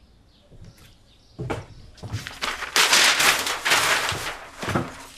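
Paper and marker sounds at a flip-chart pad: a knock about a second and a half in, then about three seconds of dense, scratchy rustling.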